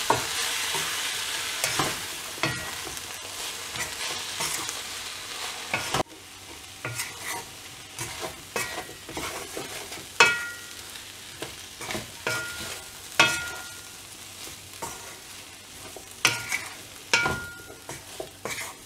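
Wooden spoon stirring broccoli and potatoes in a frying pan while the oil sizzles. The sizzle is steady for about the first six seconds and then drops sharply. After that, separate scrapes and knocks of the spoon against the pan stand out, some with a brief high squeak.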